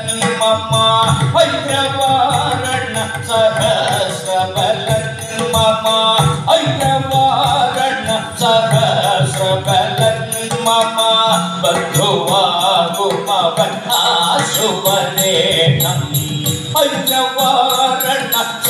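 Ottan thullal music: a voice singing Malayalam verses in a chant-like style over a steady rhythm of small hand cymbals (ilathalam) and mridangam drum.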